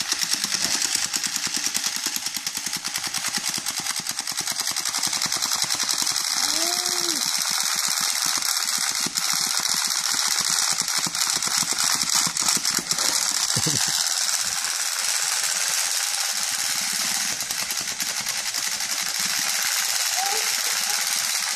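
Small World Toys Catch of the Day toy fishing set clicking rapidly and continuously, a dense mechanical ratcheting rattle.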